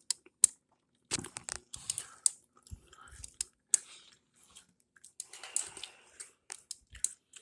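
Irregular clicks, knocks and scraping of plastic parts being handled on a refrigerator's ice dispenser.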